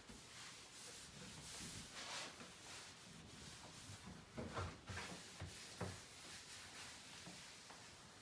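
Faint kitchen handling sounds: a soft rub about two seconds in, then a few light knocks of items set down or moved on the counter.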